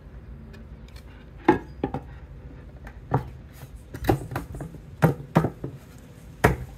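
Finger-jointed pine beehive box boards knocking together as the glued joints are pushed and tapped into place by hand: a series of sharp, irregularly spaced wooden knocks.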